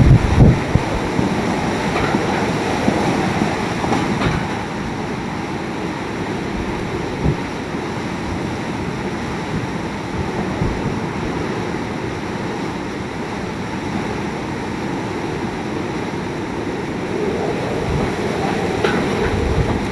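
Hurricane-force wind and heavy rain making a steady rushing roar, with gusts buffeting the microphone in low thumps near the start and once more partway through.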